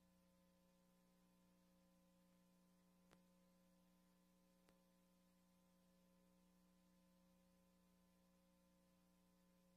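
Near silence: a faint steady hum from VHS tape playback, with two tiny clicks about three and four and a half seconds in.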